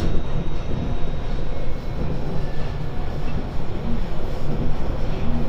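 JR Shikoku 5000 series electric train running, heard from inside the car: a steady low rumble of wheels and running gear, with faint steady tones from the Toshiba IGBT inverter-driven traction equipment.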